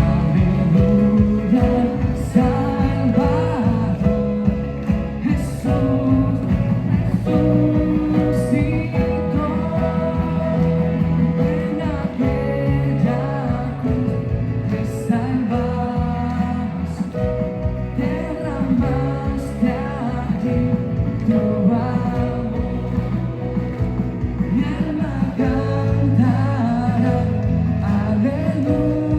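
Live worship band playing a song: a sung melody over piano, electric and acoustic guitars, bass guitar and a drum kit with regular cymbal strokes.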